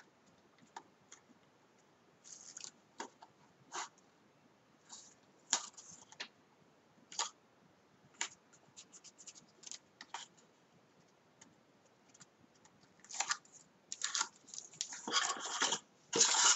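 Hands handling and pressing pieces of cardstock: scattered short rustles and light taps, turning into a denser run of paper rustling near the end.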